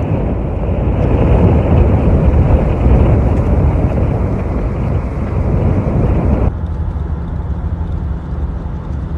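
Strong wind buffeting a phone's microphone while a dust tornado is filmed: a loud, rough rumble that cuts off about six and a half seconds in to a quieter rumble.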